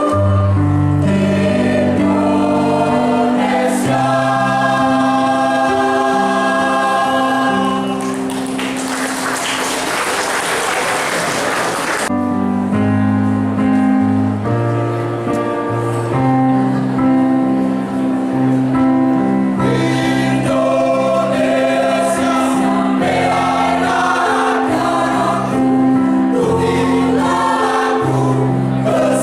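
A mixed choir singing sustained chords in several parts over low held notes. About eight seconds in, a stretch of applause lasts about four seconds while the singing continues.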